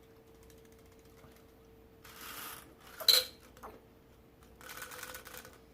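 Small handling noises: a short rustle, one sharp clink about three seconds in, then more rustling near the end, over a faint steady hum.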